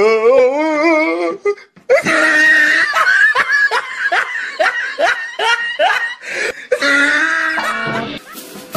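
Loud hearty laughter from one person: a wavering drawn-out laugh, then a rapid run of short rising "ha" bursts at about two to three a second.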